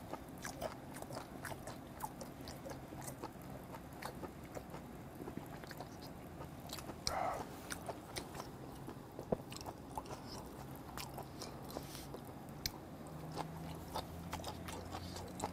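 Faint close-miked chewing of a mouthful of blue crab eaten shell and all: small crunches and wet clicks.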